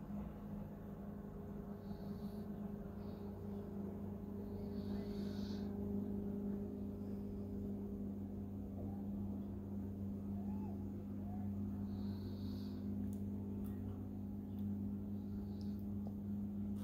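A steady low hum, holding the same pitch throughout, with a few faint clicks near the end.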